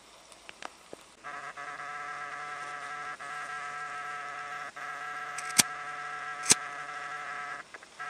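An insect buzzing its wings in a steady, even-pitched drone that starts about a second in, breaks off briefly a few times and stops near the end. Two sharp clicks come in the second half.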